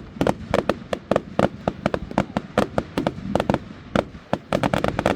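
Fireworks going off in a rapid, uneven string of sharp bangs, several a second, some crowded close together.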